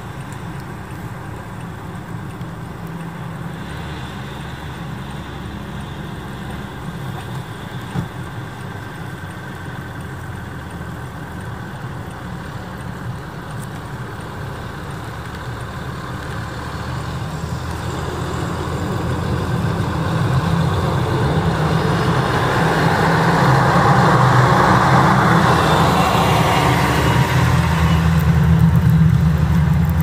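Heavy snowplow trucks' engines running as they drive along pushing snow with their plow blades. The rumble grows louder about two-thirds of the way through as a truck draws near, with a broad rushing noise from the plow and snow.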